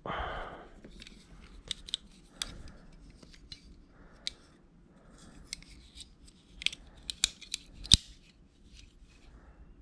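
Leatherman multi-tool being opened and folded in the hands, its steel handles and tools clicking and snapping into place: a string of separate sharp metal clicks, the loudest near the end.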